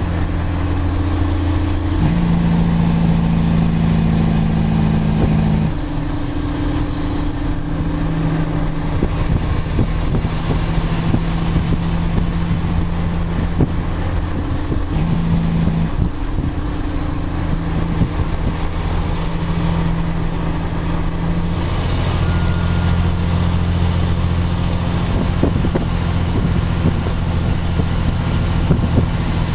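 Kenworth logging truck's diesel engine running under a heavy load of about 50 tonnes, a loud low drone whose pitch shifts in steps several times.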